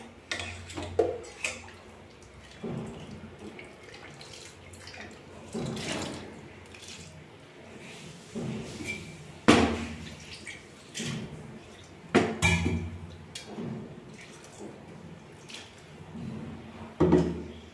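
Water poured from a steel mixer-grinder jar into a steel pot of curry, with a few sharp metal clinks against the pot.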